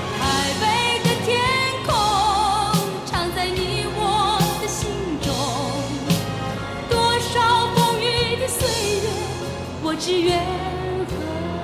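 Background music: a Mandarin pop ballad, its melody line carrying heavy vibrato over a steady backing.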